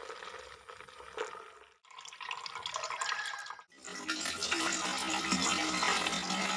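Liquid pouring and splashing: blended aloe vera liquid poured through a plastic strainer, then more liquid splashing into a plastic bucket. It comes in three short pieces cut together, the last and loudest from about four seconds in.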